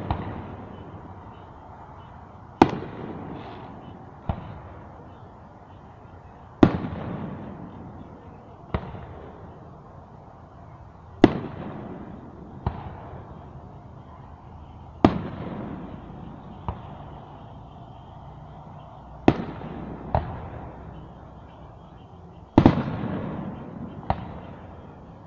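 Aerial firework shells bursting: about a dozen sharp bangs at uneven gaps of one to three seconds, each trailing off in an echo.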